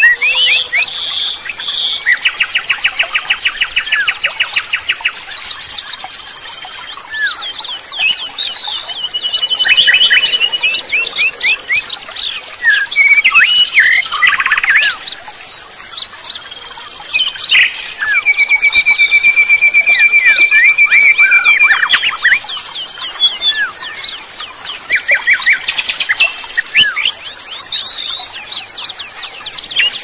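Many kinds of songbirds singing at once, a dense mix of overlapping whistles, chirps and chattering trills. A long, fast, even trill stands out just past the middle.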